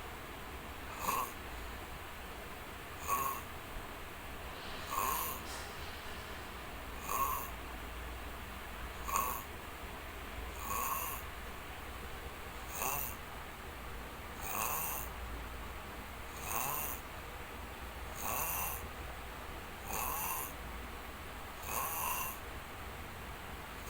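Snoring: a short snore about every two seconds, twelve in all, each brief and evenly spaced.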